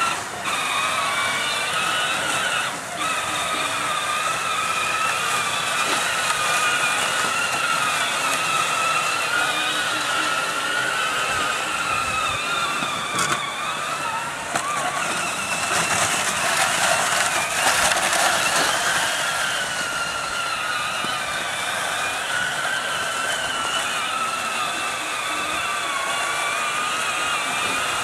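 Peg Perego John Deere Gator 6x4 ride-on toy's battery-powered electric drive motors and gearboxes whining steadily as it drives, the pitch wavering up and down with the load.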